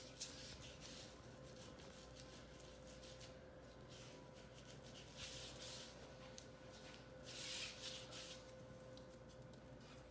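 Faint, soft swishing of a paintbrush stroked and dabbed along an open wallpaper seam, working wet glue in behind the paper, in a series of short strokes. The strongest strokes come about halfway through and again near the end.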